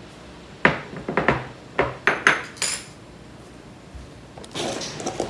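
Glass jars and dishes being set down and knocked together on a kitchen counter: a quick series of about seven sharp knocks and clinks in the first three seconds, one ringing high, then a softer scuffling near the end.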